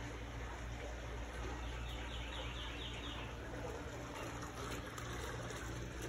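Outdoor garden ambience with a steady low hum under it; about two seconds in, a bird gives a quick run of six or seven short chirps.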